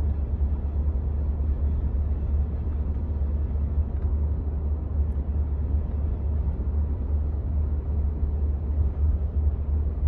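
Cab of a 2015 Ford F-150 with the 5.0 L V8, pulling under load in fifth gear: a steady low drone from the engine and road with a tinny rattle, the sign of a loose heat shield on the exhaust cross pipe.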